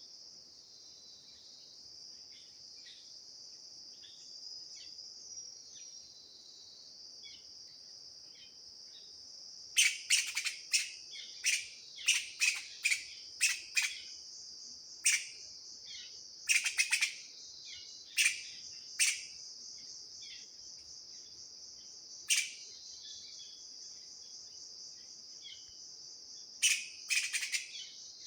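Steady high-pitched insect drone, with loud, sharp chirping calls starting about ten seconds in, several a second in short clusters, then spaced out, with another quick cluster near the end.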